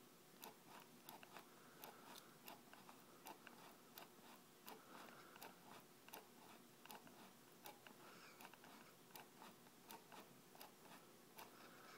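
Faint, irregular clicks and taps, about two a second, from a finger working the lever of a rough cardboard-box prototype that raises and lowers a small wheel under it.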